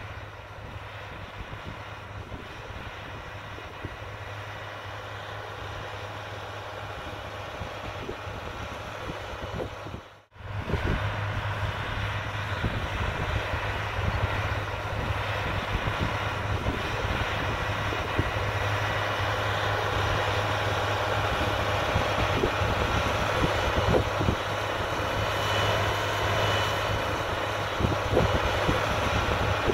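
Steady hum of a running machine, with a constant low tone. It cuts out for a moment about ten seconds in and comes back louder.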